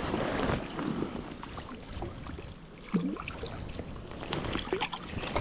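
Creek water running, with wind on the microphone.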